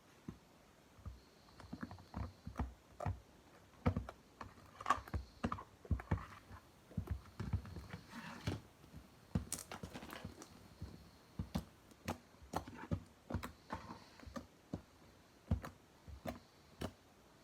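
Hand-played slime being pressed and squeezed, giving irregular sharp clicks and pops, about one to three a second.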